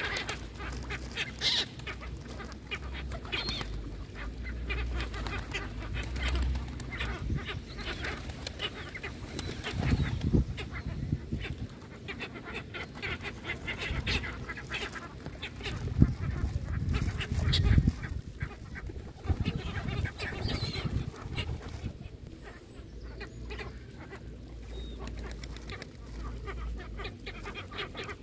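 A flock of gulls and mallard ducks calling over and over in short calls. A few low rumbles come about a third of the way in and again just past halfway.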